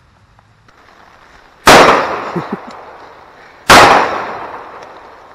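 Handgun fired twice, about two seconds apart, each sharp shot trailing off over about a second.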